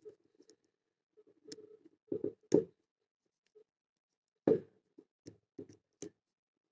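A padlock and lock-picking tools being handled and the lock regripped in the hand: scattered short clicks and knocks, the loudest about two and a half and four and a half seconds in.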